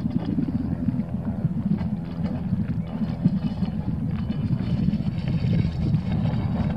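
Wind buffeting the camera microphone on the open river, a steady low rumble that rises and falls in gusts.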